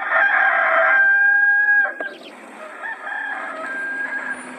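Rooster crowing, a stock Hollywood Edge sound effect: one long drawn-out crow on a held note that breaks off about two seconds in, followed by a quieter, fainter stretch.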